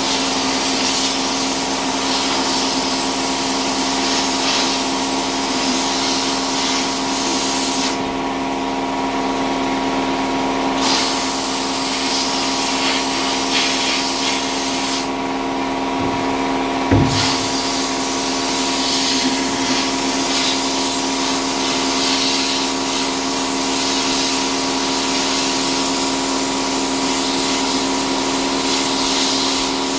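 Sandblaster nozzle hissing as it blasts rust scale off a G-clamp's screw inside a blast cabinet, over a steady hum. The blast stops twice for a few seconds, about eight seconds in and again around fifteen seconds in, and there is a single knock around seventeen seconds.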